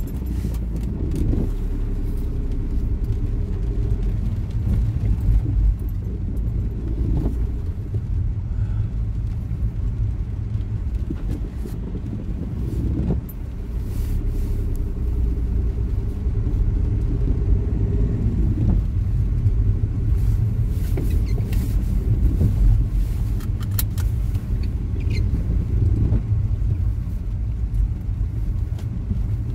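Car interior rumble while driving slowly over a rough, wet, debris-strewn road: a steady low drone of engine and tyres, a little louder from about halfway, with scattered small clicks and knocks.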